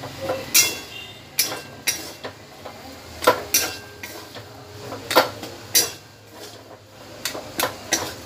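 A spatula scraping and knocking against a kadai as ground chana dal is stirred and roasted in ghee. The strokes come as irregular sharp scrapes and clinks, about one or two a second, some with a brief metallic ring.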